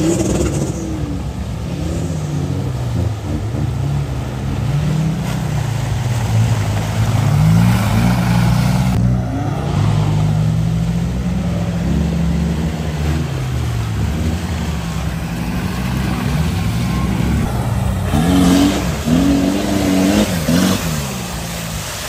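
Off-road 4x4 engine revving up and down again and again on a trail, its pitch rising and falling, with quicker, higher revs near the end.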